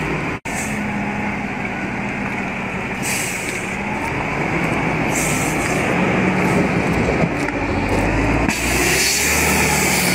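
Heavy multi-axle dump truck's diesel engine running as the loaded truck drives slowly over a muddy dirt road, with a couple of short hisses about three and five seconds in. The engine sound grows louder and deeper near the end.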